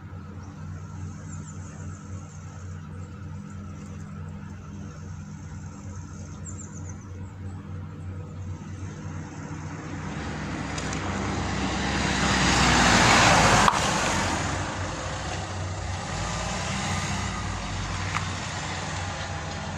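Road traffic: a car approaches and passes close by, building over a few seconds to its loudest about two-thirds of the way through, then fading, over a steady low engine hum. A van drives over the level crossing near the end.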